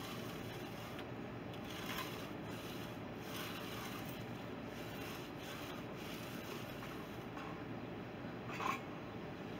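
Faint scraping strokes of a hand tool working the edge of a freshly poured concrete slab, over a steady outdoor hiss, with one brief sharper sound near the end.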